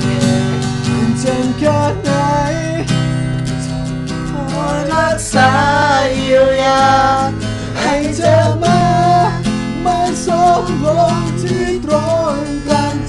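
Acoustic guitar strummed in a steady rhythm through an instrumental break. From about five seconds in, a voice carries a wordless, wavering melody over the strumming.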